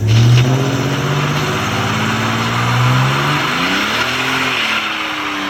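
A vehicle engine running steadily; about four seconds in it rises briefly in pitch and then falls back.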